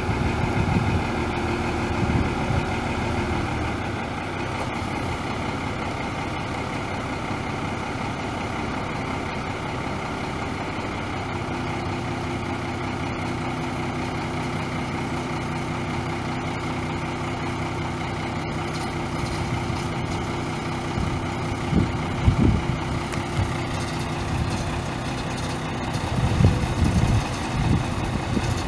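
1989 Ford LT8000's 7.8 L inline-six turbo diesel running steadily, its engine note shifting slightly a few seconds in and again around the middle. Several louder low rumbles come through in the last few seconds.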